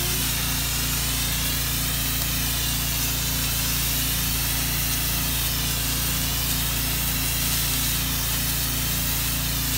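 High-pressure washer jet hissing steadily as it blasts graffiti paint off a brick wall, with a steady low hum underneath.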